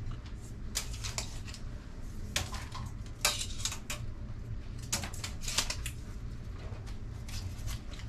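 Steel tape measure being handled, its blade rattling and scraping in short clusters of clicks every second or two, over a low steady hum.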